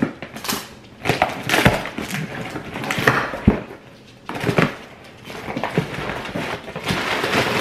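A cardboard shipping box being opened by hand: irregular ripping and scraping of cardboard, with a few sharp knocks.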